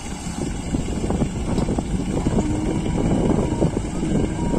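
Tractor diesel engine running loud and steady with a fast low chug, working under the load of a trolley.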